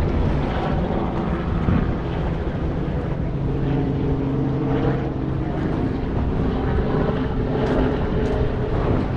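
Wind rumbling on the microphone, with a steady engine drone from a passing aircraft or vessel coming in about three and a half seconds in and fading near the end.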